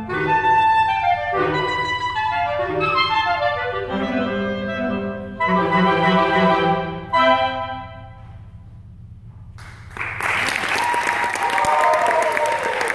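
Clarinet ensemble of five B-flat clarinets and a bass clarinet playing quick, busy figures up to the final chord, which ends a little over halfway through. After a short lull, audience applause starts.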